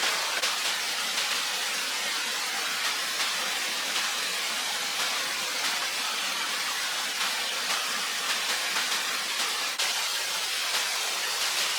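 Running water rushing steadily, a constant even hiss.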